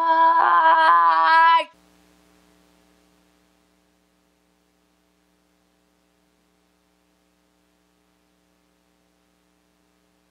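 A woman's voice holding a long, high, steady note that turns into a wavering warble and cuts off suddenly under two seconds in. After that there is only a faint steady electrical hum.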